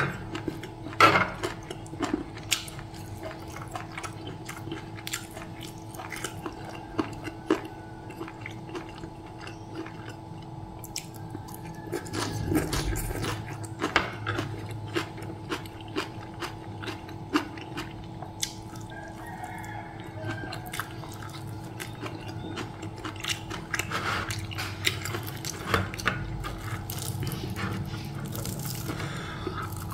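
Close-up eating sounds: chewing, lip smacking and wet mouth clicks as fried chicken and omelette are eaten by hand, the clicks coming irregularly throughout. A steady low hum runs underneath.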